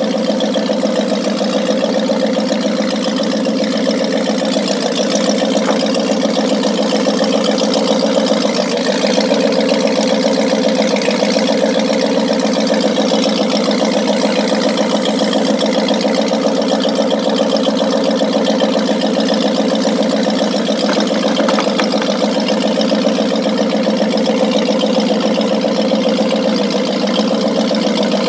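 A 1981 Donzi speedboat's Volvo Penta V8 engine idling steadily.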